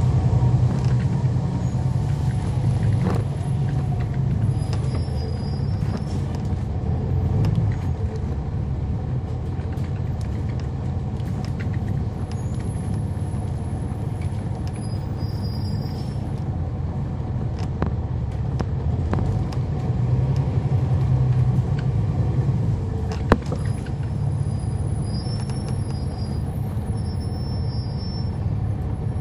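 Heard from on board: the Cummins ISL9 diesel engine and drivetrain of a 2011 NABI 40-SFW transit bus running in service, a steady low rumble that swells slightly now and then. A single sharp click comes about three-quarters of the way through.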